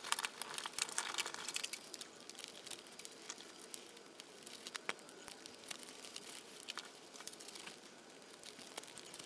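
Strips of birch bark crinkling and clicking as they are folded, tucked and pulled through in weaving a star: many small sharp clicks and rustles, thickest in the first two seconds, then sparser.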